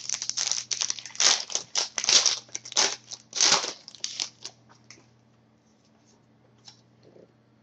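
Foil trading-card pack wrapper being torn open and crinkled by hand, in quick bursts of rustling for the first few seconds, then dying down to a few faint ticks.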